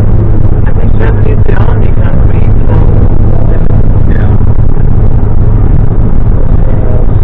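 Car driving along: a steady, loud drone of engine and road noise with a strong low hum.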